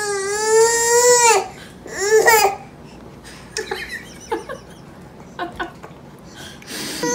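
Toddler crying: one long wavering wail of about a second and a half, then a shorter cry about two seconds in. After that there are only small faint sounds.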